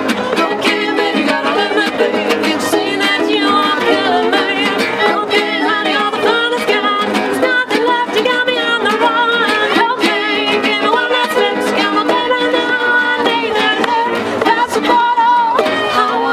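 Acoustic folk band playing: a fiddle melody with vibrato over strummed acoustic guitars, a small plucked string instrument and a steady cajón beat.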